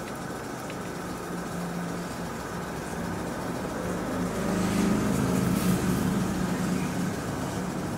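Airbrush compressor running with a steady motor hum. About halfway through it swells louder for a couple of seconds, with a hiss of air and spray over it.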